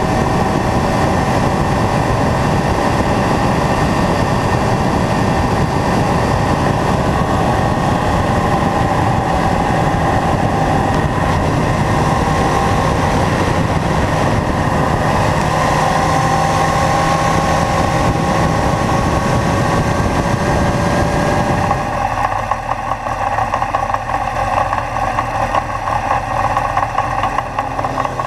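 Kawasaki Zephyr's air-cooled inline-four engine pulling steadily on the road, its pitch drifting up and down with the throttle, mixed with road and wind noise. About three-quarters of the way through it changes abruptly to a quieter, choppier engine-and-wind sound as motorcycles approach.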